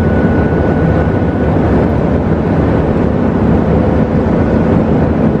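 Steady cabin noise of a Boeing Business Jet (737) in flight: an even rumble of engines and rushing air, with a faint steady hum running through it.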